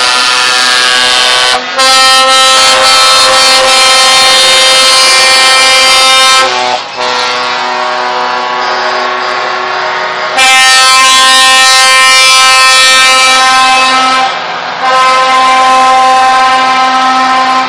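Loud truck air horns blowing long, held multi-note chords, one blast running almost straight into the next. The chord changes about every four seconds.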